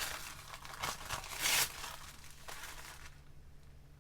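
Packaging being handled and crinkled, a series of irregular rustles and small clicks with the loudest crinkle about a second and a half in, dying away in the last second.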